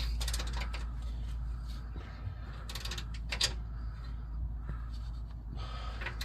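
A few sharp metallic clicks and taps from hand tools tightening the muffler's locking nuts, over a steady low hum.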